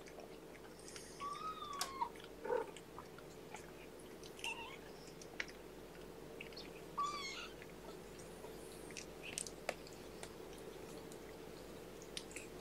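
Three-week-old kittens nursing on their mother cat: faint suckling clicks and smacks, with a short high kitten squeak about a second in and another about seven seconds in.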